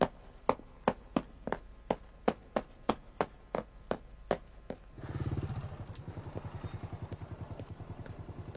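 Hard-soled shoes going quickly down stairs, about three steps a second. About five seconds in, these give way to a motorcycle engine idling with a fast, even putter, loudest as it comes in and then steady.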